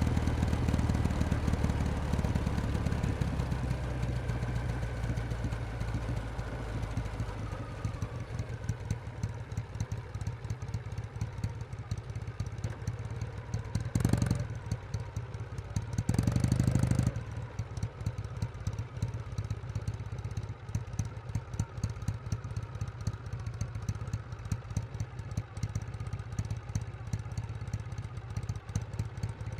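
Kawasaki W1S vertical-twin motorcycle engine slowing and settling to a steady, pulsing idle within the first several seconds. Twice around the middle a short louder burst of noise rises over it, the second lasting about a second.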